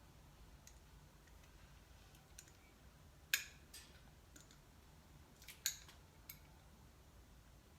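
Several sharp clicks of hand tools being handled, likely ratchet and socket pieces, against faint room tone. The loudest click comes about a third of the way in, then a close pair and a lighter click a little past halfway.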